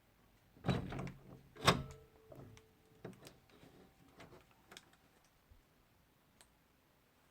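A door worked open or shut: two sharp thumps about a second apart, the second the loudest, followed by a short faint squeak and small latch clicks and rattles that die away.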